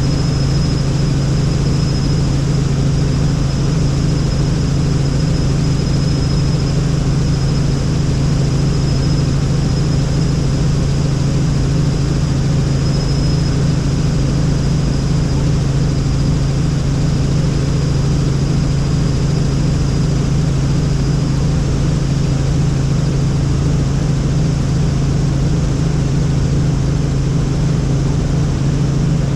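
Helicopter in flight: the steady, loud drone of the rotor and turbine engine, with a thin high whine on top.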